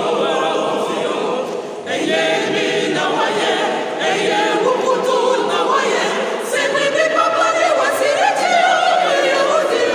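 Mixed choir of men's and women's voices singing together in harmony, unaccompanied, with a brief breath pause about two seconds in.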